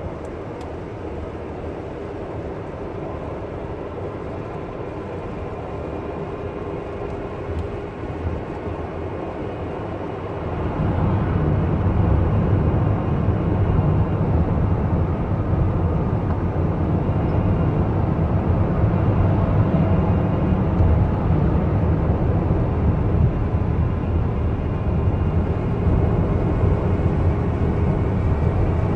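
Toyota Camry ACV40's 2.4-litre four-cylinder engine running steadily, then revved up about ten seconds in and held at a higher speed, around 3,000 rpm. At that speed it makes a strange noise from the left-hand side that stops once the heater core is bypassed, which points to coolant flowing through the heater core.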